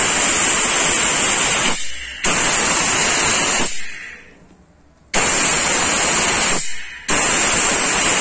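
Compressed air hissing through a pneumatic venturi vacuum brake bleeder as its trigger is pulled, in four bursts of a second or so that cut off and start again, with a longer pause about halfway.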